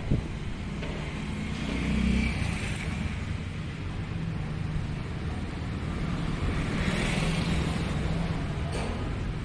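Steady low rumble of road traffic, with a hiss that swells twice as vehicles pass, mixed with wind.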